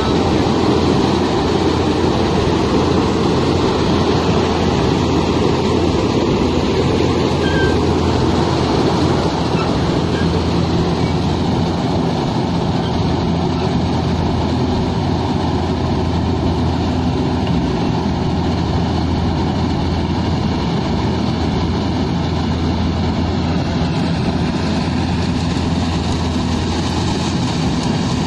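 Combine harvester working, cutting a standing crop: a loud, steady engine drone that holds one pitch throughout, mixed with the noise of the cutting and threshing machinery.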